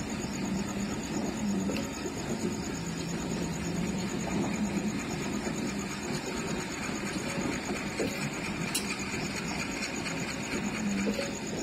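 New-generation Argo Bromo Anggrek stainless-steel passenger coaches rolling slowly past on the track: a steady rumble of wheels on rails, with a few sharp clicks of wheels over rail joints.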